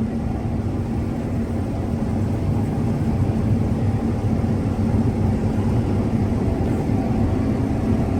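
Combine harvester running steadily while harvesting corn, heard from the cab: an even engine and machinery drone with a low hum.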